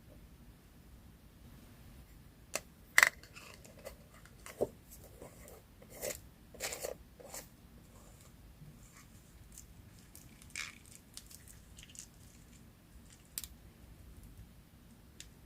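Paper being handled at close range for collage work: scattered short crinkles, snips and light taps, the sharpest about three seconds in and a busier stretch around six to seven seconds.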